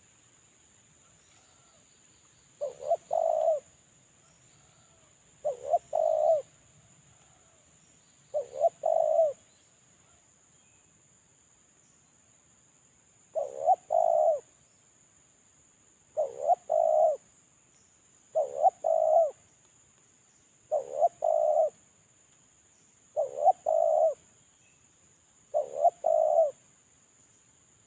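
Spotted dove (terkukur) cooing as a lure bird: nine short coo phrases of a few quick notes each, about a second long, repeated every two to three seconds with one longer pause near the middle.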